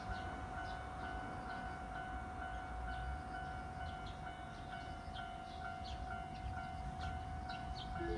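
Railway station platform sound: a steady humming tone with a faint pulsing beat about two to three times a second, scattered short high chirps, and a low rumble.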